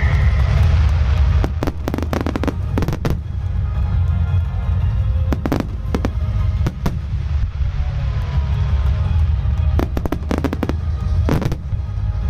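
Starmine fireworks barrage: three rapid clusters of sharp bangs and crackling, over a continuous low rumble of shell bursts and show music.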